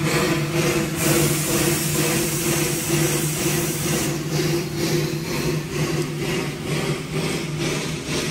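A narrow-gauge steam locomotive standing in steam: a steady low hum with a fast rhythmic pulsing, and a burst of steam hiss that starts about a second in and eases off about four seconds in.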